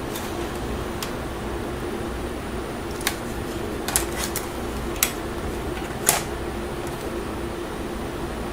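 About six small, sharp clicks and taps from handling the laptop's keyboard and its parts during installation, spread over a few seconds in the middle, over a steady background hum.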